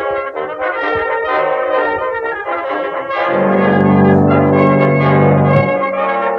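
Brass-led orchestral music with stacked held notes; just past the middle a loud, low brass chord is held for about two seconds.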